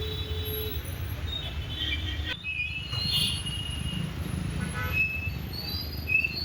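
Roadside traffic noise: a steady low rumble of vehicle engines with scattered short high tones, briefly dropping out about two and a half seconds in.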